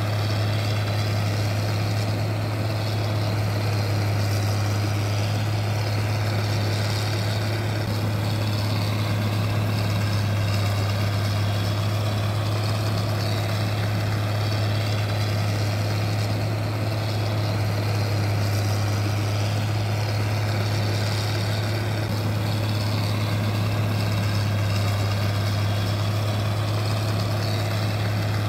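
Camera drone's propellers whirring steadily: a constant low hum with a fainter high whine that drifts up and down a little every few seconds.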